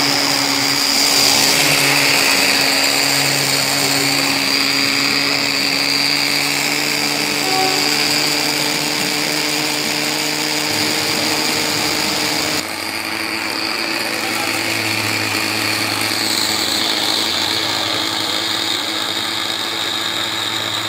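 The small engine of a G scale live diesel model locomotive running steadily with a high, even mechanical whine. Its note and loudness change abruptly about two-thirds of the way through.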